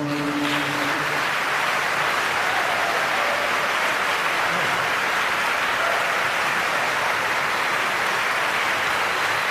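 Concert audience applauding steadily. Within the first second, the last held chord of a male a cappella ensemble cuts off beneath it.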